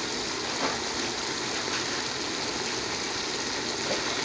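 Pot of scotch bonnet chillies simmering in vinegar: a steady hiss with a few faint pops. The chillies are being cooked down until soft for a hot chilli paste.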